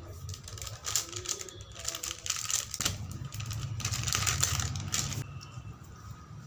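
Crinkling and crackling of a plastic spice-masala sachet being handled and shaken out over a steel bowl, in two spells: about a second in and again around four seconds in.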